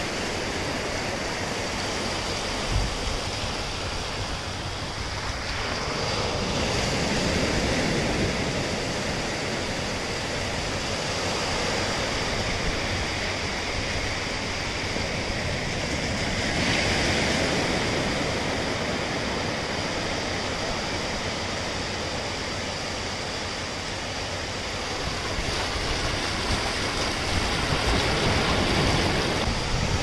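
Low surf breaking and washing in over a flat sandy beach: a continuous rush of foam and water that swells louder about every ten seconds as each wave comes in.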